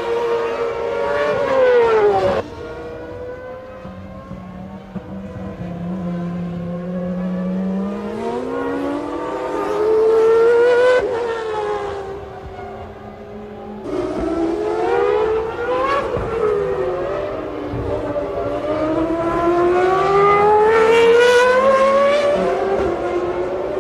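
1995 Formula One cars' racing engines at high revs, the pitch climbing and then dropping again and again as they run through the gears; the sound changes abruptly twice, about two seconds in and again about fourteen seconds in.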